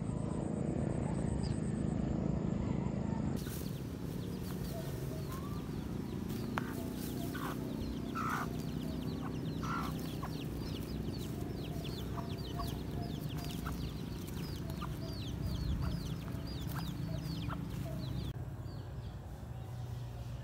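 Chickens clucking, over a steady low rumble, with a rapid run of short high chirps through the middle.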